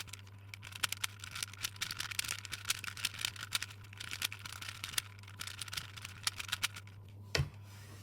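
A 4x4 puzzle cube being turned: a quick, uneven run of plastic clicks and clacks over a steady low hum, with one louder thump a little past seven seconds.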